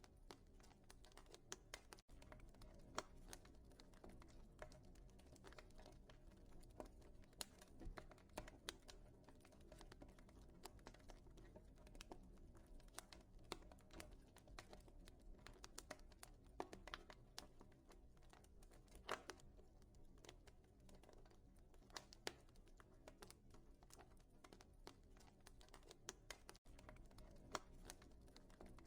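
Faint wood fire in a fireplace crackling: irregular sharp snaps and pops over a low, steady rumble of the flames.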